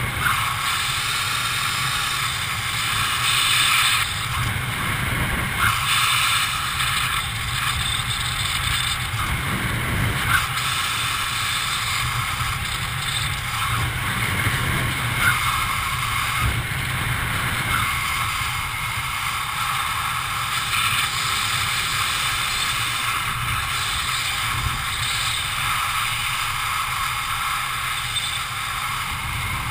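Steady rush of air over the camera during a descent under an open parachute canopy, with a few faint ticks.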